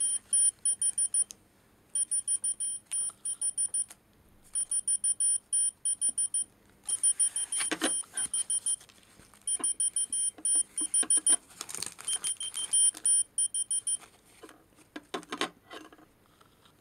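Whistle-activated key-finder keychain beeping: rapid high electronic beeps, about five or six a second, in repeated bursts with short pauses, stopping near the end. It goes off with no clear trigger, and the owner cannot tell what it is reacting to. A few soft handling knocks come in between the bursts.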